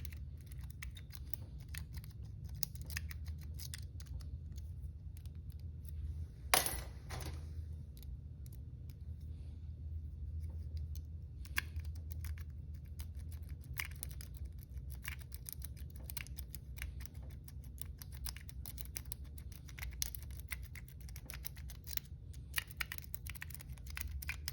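Lock picks working inside a cheap Master Lock-style knockoff padlock: an irregular run of small metallic clicks and scrapes as the pins are picked, with a louder scrape about six seconds in, over a low steady hum.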